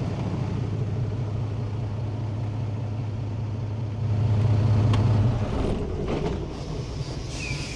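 International truck's diesel engine idling, its low hum swelling for about a second past the middle and then dropping away.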